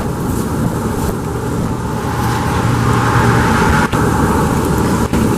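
Engine of a John Deere Gator 6x4 utility vehicle running steadily, rising a little in the middle.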